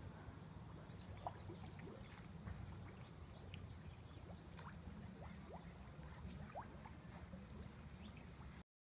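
Faint, gentle sloshing and trickling of swimming-pool water stirred by two bodies moving slowly through it, with small scattered drips and laps over a low rumble. The sound cuts off abruptly near the end.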